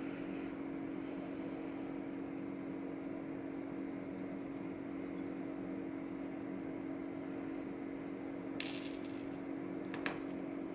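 Two small metallic clicks near the end, the clink of tiny lock pins and parts being handled while a Goal D9 dimple lock is taken apart, over a steady background hum.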